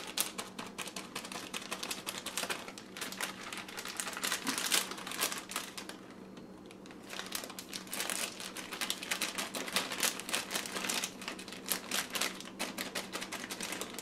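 Plastic bag of shredded cheese crinkling and rustling as it is squeezed and shaken out over a pizza, a dense run of small crackles that drops away briefly about six seconds in.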